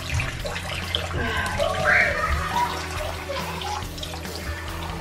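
Bathroom sink tap running while water is splashed over a child's face by hand. About a second and a half in, the child's voice whimpers briefly, rising and falling.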